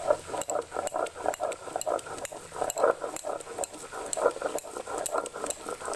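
Wet spice paste being ground on a shil-nora stone slab: the hand-held grinding stone is rocked and pushed back and forth in quick, even scraping strokes, about four a second, with sharp clicks of stone on stone.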